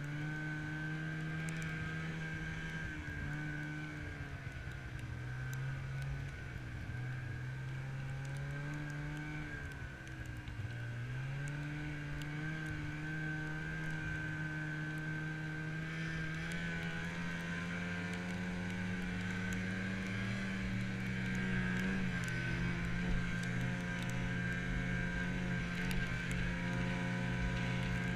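Snowmobile engine running under way, heard from the seat behind the driver, with a steady high whine over it. Its pitch dips about ten seconds in, then climbs and holds higher through the second half as the sled speeds up.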